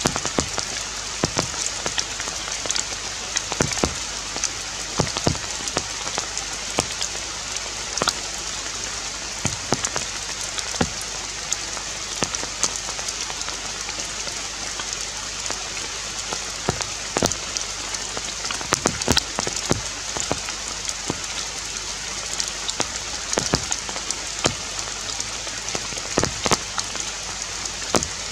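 Forest ambience: a steady high-pitched hiss with many sharp ticks scattered at irregular intervals, like drops pattering on leaves.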